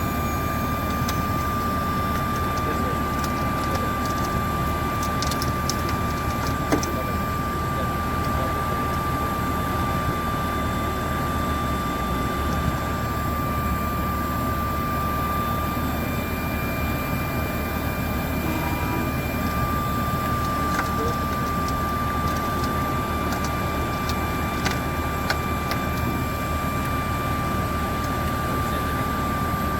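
Steady aircraft noise: a constant rumble with a high, steady whine over it and a few faint clicks.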